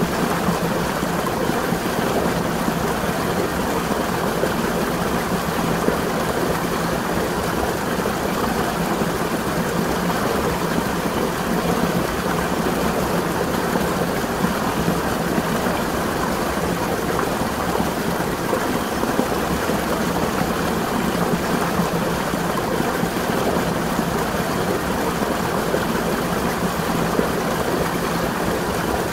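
Water of a spring running and splashing in a steady, even rush that does not change.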